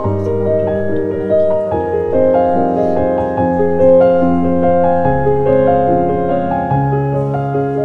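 Background music led by piano, a slow run of held notes.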